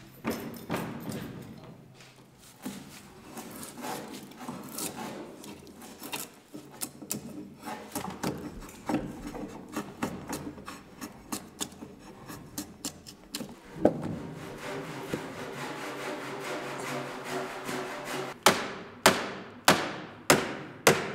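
Hand woodworking on timber beams: scraping and rubbing strokes on the wood with short knocks. Near the end, a run of hard, evenly spaced blows on wood, about one and a half a second.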